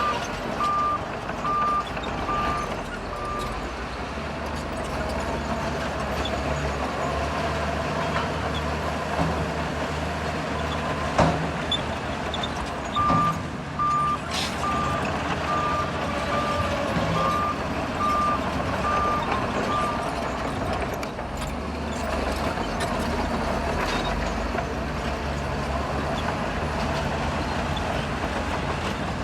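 Shantui bulldozer's diesel engine running steadily, with a reversing alarm beeping about twice a second for a few seconds at the start and again for about seven seconds in the middle. A single sharp knock about eleven seconds in.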